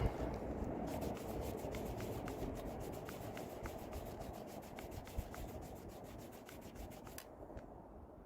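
WD-40 being rubbed by hand into a vintage hatchet's wooden handle: a steady rubbing, with quick light ticks about four a second that stop sharply about seven seconds in.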